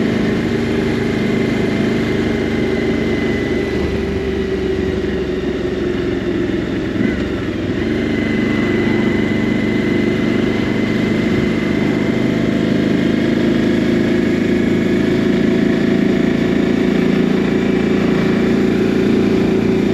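Motorcycle engine running steadily at road speed, with road and wind noise, heard from the rider's seat. The level eases slightly a few seconds in, then holds steady again.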